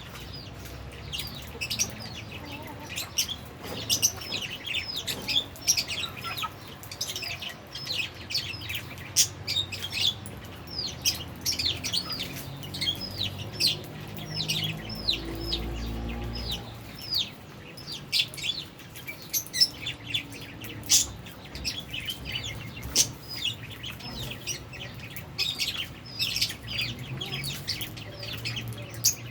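A colony of Fischer's and albino lovebirds chirping without pause: many rapid, overlapping high chirps and short falling calls, with sharper, louder calls standing out every second or two.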